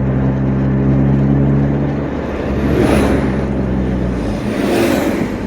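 Turbocharged Honda Accord's engine heard from inside the car while driving at about 40 mph. A steady engine note holds for about two seconds, then changes and drops away. Two brief rushing noises come around three and five seconds in.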